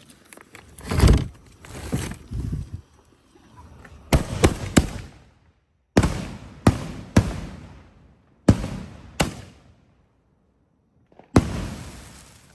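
Consumer aerial fireworks going off: a heavy low bang about a second in, then clusters of sharp bangs, three, three, two and a last single one, each trailing off in a fading rumble.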